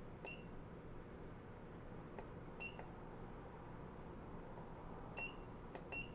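Front-panel buttons of a 948 III soldering station being pressed: four faint, very short high chirps with a few softer clicks between them.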